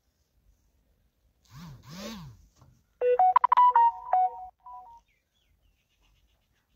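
A short electronic jingle of stepped beeping tones, about two seconds long, like a phone ringtone. Just before it come two short, fainter calls that rise and fall in pitch.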